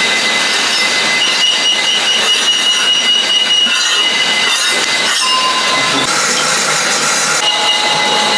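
Loud, continuous metallic grinding noise with high squealing tones that come and go.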